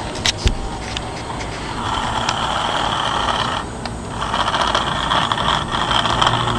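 Small electric motor and gears of a 1950s remote-control toy car whirring with a thin steady whine; the motor runs on two D batteries in its remote. A few sharp clicks come near the start. The motor starts about two seconds in, stops briefly near the middle, and starts again.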